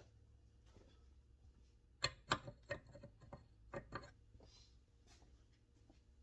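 Metal tools, likely sockets, clinking and knocking against each other as they are picked through: a quick run of about eight sharp clinks over two seconds, starting about two seconds in.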